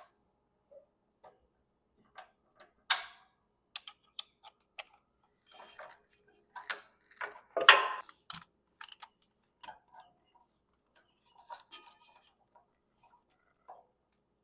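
Irregular metallic clicks and clanks of hand tools working on a mower's belt tensioner and pulley bolts, with two sharper knocks about three seconds in and near the middle.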